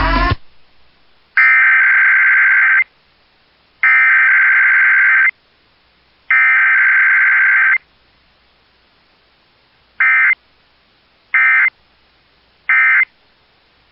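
Emergency Alert System digital data bursts (SAME header tones): three long, loud, buzzy screeches about a second and a half each, then three short blips near the end, which are the end-of-message code. The short blips close the alert.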